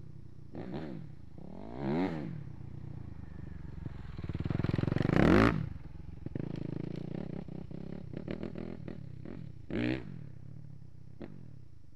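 Suzuki RM-Z250 four-stroke single-cylinder dirt bike riding the track, revving up and backing off several times. It rises to its loudest as it passes close by just after five seconds, where the throttle shuts off sharply, then runs rougher and farther off with another short rev near the end.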